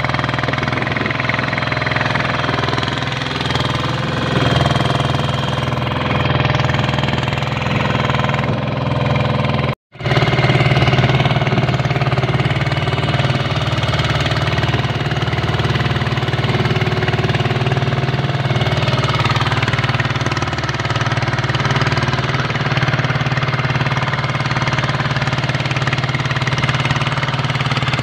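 Small boat's engine running steadily underway, with a dense mechanical knocking rhythm. The sound drops out for an instant about ten seconds in and resumes unchanged.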